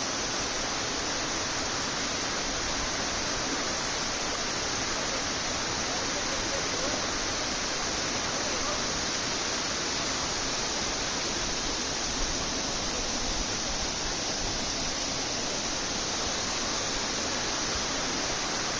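Powerscourt Waterfall's falling water, a steady, even rush.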